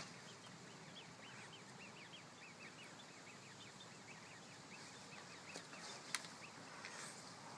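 Faint bird chirping: a quick run of short, high notes repeated several times a second that thins out about five seconds in. A sharp click about six seconds in.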